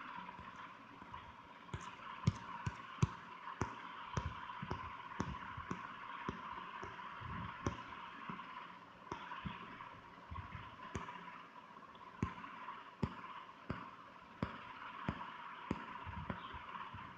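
Irregular light clicks, roughly one or two a second, over a steady background hiss with a faint high hum: the sound of someone clicking through files on a device while searching for one.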